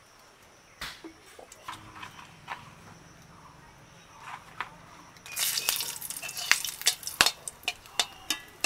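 Hot oil in an aluminium kadai begins sizzling and spitting about five seconds in, as a dried red chilli goes in, with sharp clicks of a metal spatula against the pan. Before that there are only a few scattered utensil taps.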